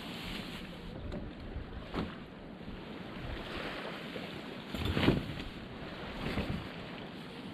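Wind on the microphone and small waves washing on the beach, with rustles and a few sudden thumps as the nylon fabric and spring frame of a pop-up tent are unfolded; the loudest thump comes about five seconds in.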